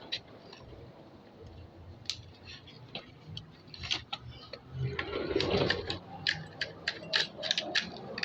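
Irregular light clicks and ticks, sparse at first and coming thick and fast in the second half.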